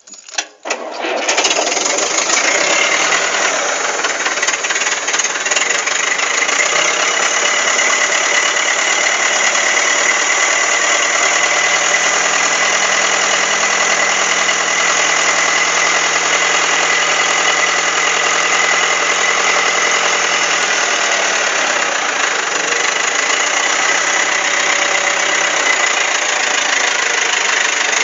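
Komatsu D30A bulldozer's diesel engine started from cold, catching about a second in and then running steadily.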